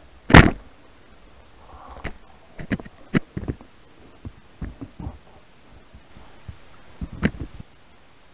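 Muffled underwater knocks and taps from the speargun and its mounted camera being handled: one loud thump about half a second in, then irregular clusters of sharp taps, the last cluster near the end.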